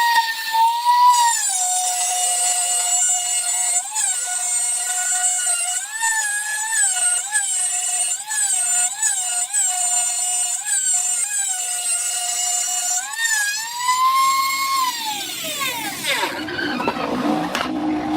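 Angle grinder running at full speed with a high whine, its pitch dipping and recovering again and again as it is pressed against the work. About 14 s in the pitch rises briefly, then the grinder winds down and stops about 16 s in.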